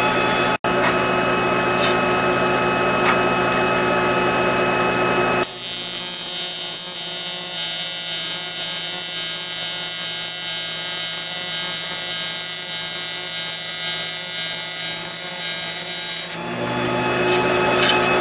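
AC TIG welding arc on aluminum buzzing steadily for about eleven seconds, starting about five seconds in and cutting off abruptly near the end. Before and after it there is a steady electrical hum.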